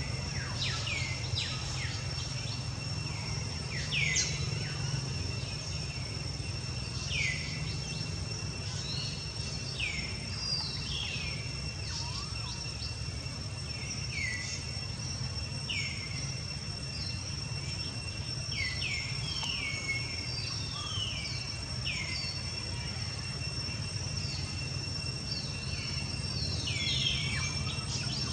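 Forest ambience: a bird repeatedly gives short calls that slide down in pitch, every second or two, over a steady high-pitched insect drone and a low, even rumble.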